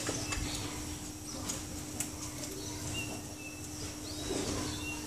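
Short, high bird chirps, a few separate notes with one arched call, over a steady low hum and a couple of light clicks.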